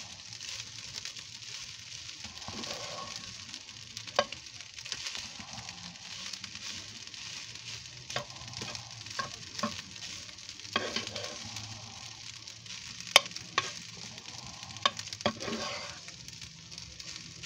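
Garlic fried rice sizzling in a frying pan as a spatula stirs and turns it, with sharp scrapes and taps of the spatula on the pan every few seconds, the loudest about two-thirds of the way through.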